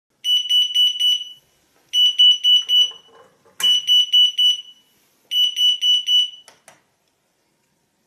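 Yostyle alarm clock charger's alarm going off: four bursts of rapid, very loud, high-pitched beeps, about eight a second, each burst a little over a second long. There is a knock about three and a half seconds in, and a couple of clicks come just after the last burst, when the beeping stops.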